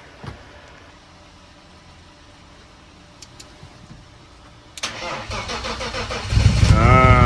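BMW E36 M3 straight-six cranked by the starter for about a second and a half, then catching and running loud, pitch rising and falling briefly near the end. It is the first start after a faulty fuel injector was rebuilt to cure a misfire.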